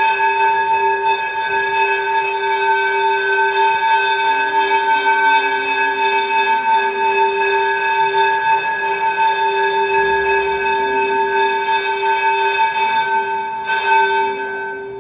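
Electric bell ringing continuously with a steady metallic clang, cutting off near the end.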